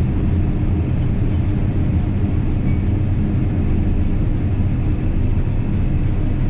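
Combine harvester running steadily while cutting soybeans: a constant low drone of engine and threshing machinery, with a few steady hum tones.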